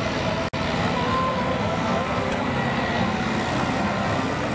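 Farm tractor's diesel engine running hard under load while pulling the weighted sled, a steady dense rumble. The sound drops out for an instant about half a second in.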